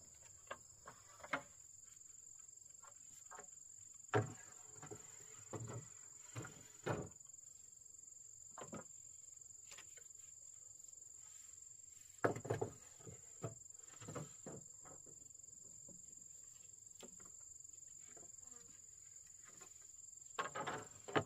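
Irregular wooden knocks and clatter in short clusters, the loudest about four seconds in and again about twelve seconds in, over a steady high-pitched insect drone.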